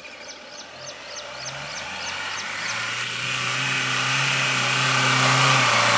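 Mahindra Thar CRDe's diesel engine pulling steadily under load as the 4x4 climbs a muddy slope, its note holding steady while it grows louder as the vehicle approaches.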